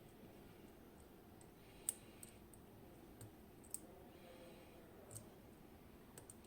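Faint, sharp clicks at irregular intervals from a Goal P six-pin tumbler lock being picked: the pick working the pins in the cylinder.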